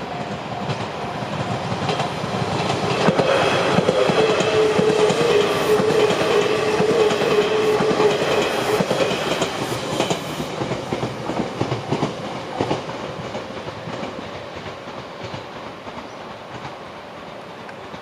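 Limited express train (Fujisan) passing over a level crossing, its wheels clicking over the rail joints. It grows loud a few seconds in, stays at a peak for several seconds, then fades away. The crossing's warning bell is ringing over it.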